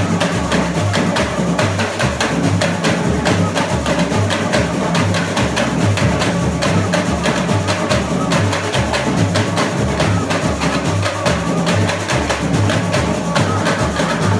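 Samba school bateria playing a driving batucada: deep bass-drum beats in a steady repeating pulse under fast, dense strikes of hand drums and small high-pitched percussion.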